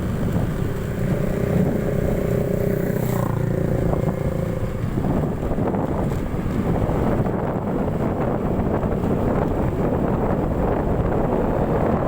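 Motorcycle riding along a rough road, with wind buffeting the microphone. A steady engine tone is heard for the first five seconds or so, then only wind and road rumble.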